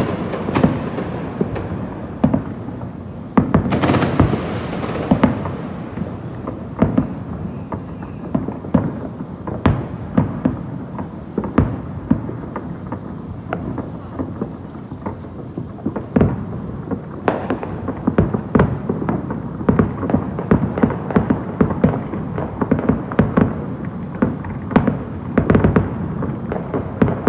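Fireworks going off in a rapid, irregular string of bangs and crackles, with a bigger burst about four seconds in.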